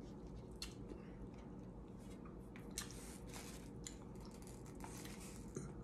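Quiet eating sounds: a plastic fork scraping and tapping on a paper plate in scattered light clicks, with chewing, over a steady low room hum.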